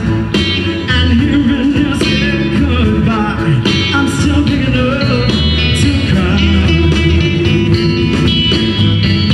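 Live blues band playing: vocals and harmonica blown into a hand-cupped microphone over electric guitar, keyboard, bass guitar and drums.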